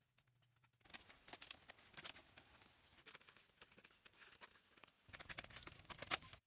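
Faint, irregular clicks and scrapes over a soft hiss. They start about a second in, grow louder in the last second and cut off abruptly.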